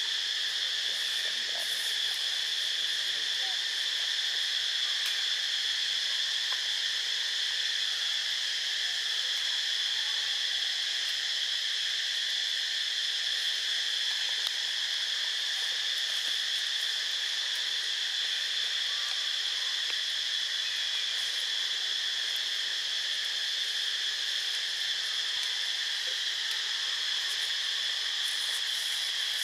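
Steady chorus of insects: a continuous high-pitched drone that holds unchanged throughout.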